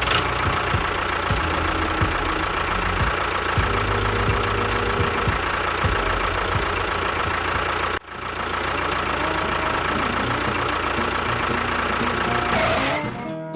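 A motor or engine running steadily, with a steady whine over it. It cuts out abruptly about eight seconds in, resumes at once, and fades out near the end.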